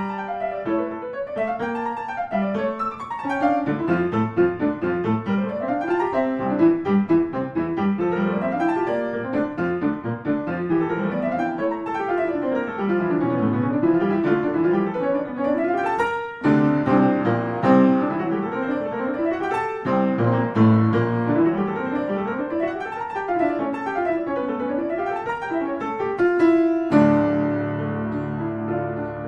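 Background piano music: quick runs of notes rising and falling in repeated waves, changing to a held chord near the end.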